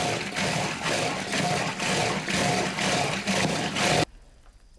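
Wooden churning stick spun rapidly back and forth in a wooden churn by a hand-pulled cord, churning fermented buffalo milk to separate butter from buttermilk. The rhythmic strokes come about two a second and stop abruptly about four seconds in.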